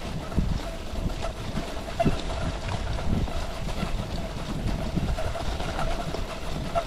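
Cross-country skis sliding along a groomed classic track, with a few soft knocks from poles or skis and wind rumbling on the microphone.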